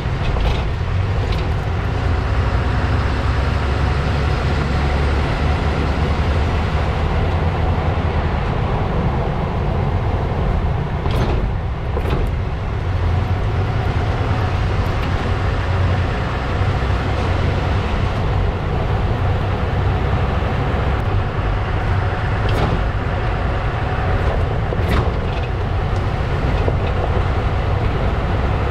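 Road and tyre noise from under a 2016 Ram 3500 pickup's rear axle as it drives, a steady heavy low rumble with wind on the microphone. A few short sharp knocks are scattered through it.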